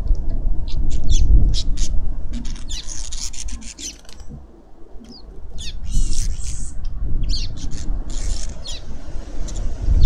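Small birds chirping busily at a garden feeder, many short high calls, with brief wing flutters as birds come and go. Wind rumbles on the microphone underneath, easing for a moment near the middle and then returning.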